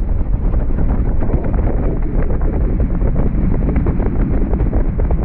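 Loud, steady wind buffeting on the camera microphone over open water: a dense low rumble with no clear tone.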